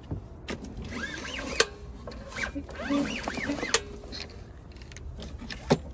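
Clicks, knocks and short squeaks of a push lawn mower's parts being handled, sounding like its folding handle being set up. There are a few sharp clicks spread through, and brief squeaks cluster in the middle.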